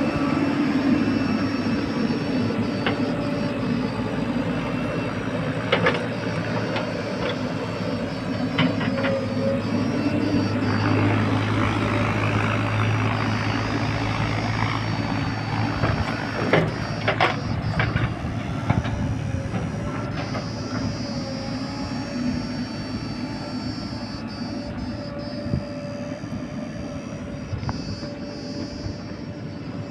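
Diesel engines of a Mahindra tractor and a JCB 3DX backhoe loader running steadily while the backhoe digs, with a few sharp metallic clanks.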